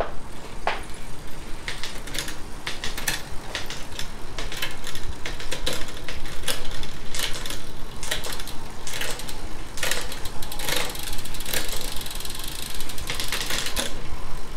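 A bicycle drivetrain running with the rear wheel spinning: the chain turns over a Shimano 7-speed cassette and through a Shimano Acera rear derailleur, a steady chain rattle with many irregular sharp clicks and clacks throughout.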